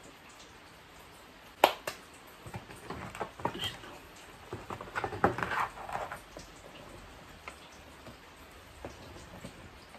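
A long plastic box being handled on a seed tray: one sharp plastic knock about a second and a half in, then a few seconds of crackly rustling and light knocks. After that, scattered faint ticks as the surface of the tray is worked.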